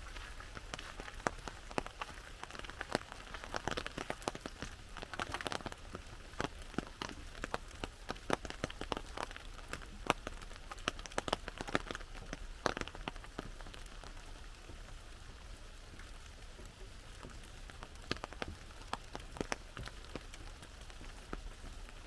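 Rain falling on an umbrella: many sharp, irregular drop taps over a steady hiss of rain. The taps thin out for a few seconds past the middle.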